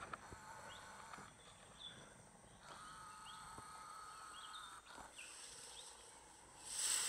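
Forest ambience: a steady high-pitched insect drone with short, repeated rising bird chirps. There is a brief loud hiss near the end.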